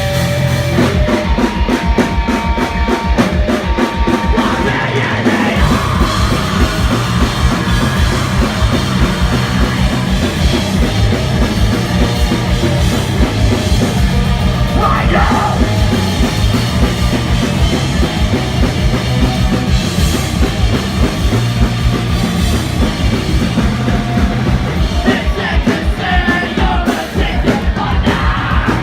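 Rock band playing live at full volume: fast, steady drumming under distorted guitars and bass, with yelled vocals in places.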